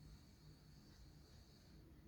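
Near silence: a faint low rumble with a thin, steady high hiss.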